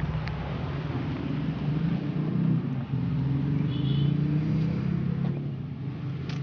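A motor vehicle engine running with a low, fairly steady hum that wavers slightly in pitch.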